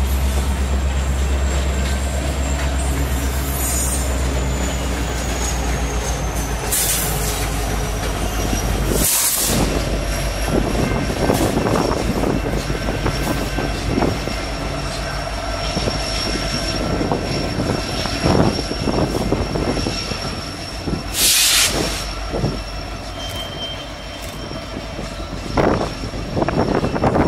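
Long freight train of coal cars rolling past, with the rumble and clatter of wheels over the rail joints and a thin, high wheel squeal that drifts slightly lower in pitch. A rear locomotive comes past near the end, with louder knocks from the wheels.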